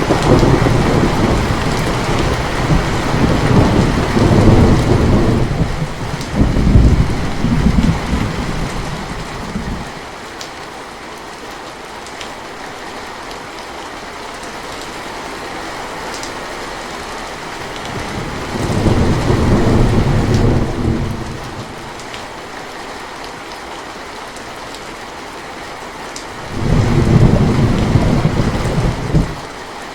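Steady rain with three rolls of thunder: a long rumble through the first ten seconds or so, another about two-thirds of the way in, and a third near the end.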